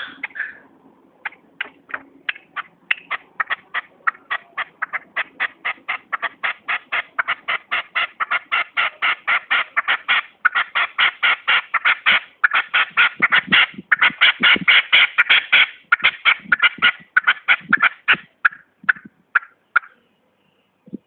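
Caged red-legged partridge calling: a long series of short, sharp notes that start sparse, speed up and grow louder to about four or five a second, then slow and trail off near the end.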